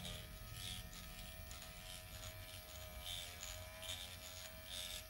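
Dr. Pen electric microneedling pen running with a steady, faint buzz as its needle tip is worked over the skin of the forehead.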